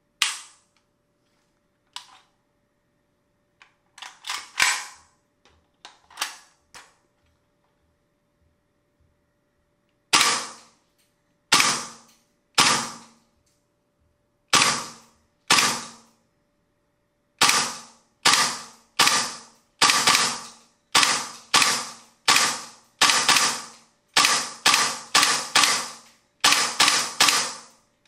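VFC FN FNC gas blowback airsoft rifle firing a string of single shots, each a sharp crack with a short echo. A few shots come early. After a pause they resume about a second or more apart, then quicken to two or three a second in the second half.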